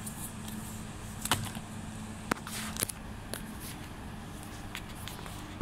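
Handling noise while the phone is moved over a pile of picture books: a few sharp clicks and taps with a brief rustle about halfway through, over a steady low hum.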